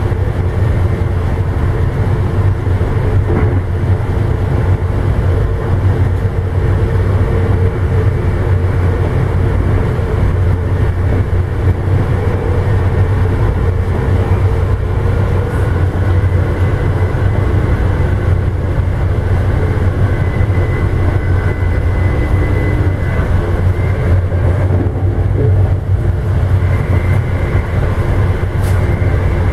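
Amtrak passenger train running along the line, heard from inside the rear car: a steady low rumble of wheels on rail with faint whining tones over it. A thin high whine grows clearer about twenty seconds in.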